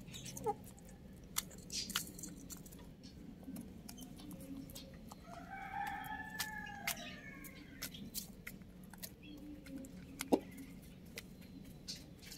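Chickens pecking at grain on a hard coop floor: many sharp, irregular pecking clicks, with a louder knock about ten seconds in. About five seconds in, one of the birds gives a single drawn-out call lasting about a second and a half that rises and then falls in pitch.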